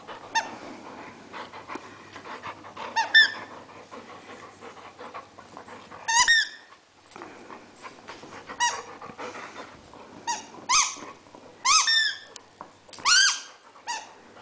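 A dog biting and chewing a squeaky rubber toy. It gives about eight short, high squeaks at irregular intervals, coming closer together in the second half.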